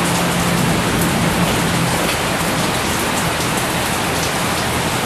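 Steady, loud hiss of rain, with scattered drop-like ticks in it. A low hum fades out over the first couple of seconds.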